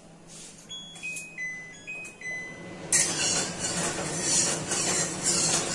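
A short electronic tune of a few steady beeping notes stepping up and down in pitch, then from about three seconds in a metal spatula scraping and stirring around an aluminium kadai of hot oil, with a hissing noise.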